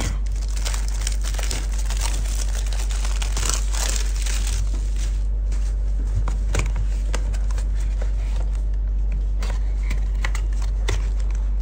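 Cellophane shrink wrap being torn and crinkled off a cardboard perfume box: dense crackling for the first few seconds, then sparser crinkles and light taps as the bare box is handled, over a steady low hum.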